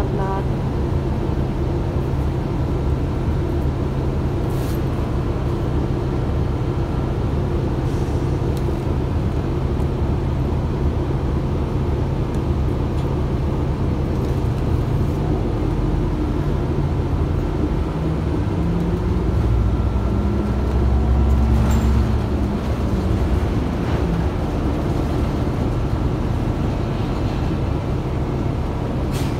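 City bus engine and road noise heard from inside the passenger cabin as a steady low rumble. About two-thirds of the way through, the engine note climbs and grows louder for a few seconds, then eases off.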